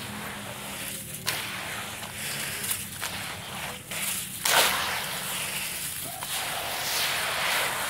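Grainy red dirt poured in crumbly clumps into a bowl of wet dirt and water: a continuous hiss of falling grains with sudden louder swishes as bigger clumps drop in, the loudest about four and a half seconds in.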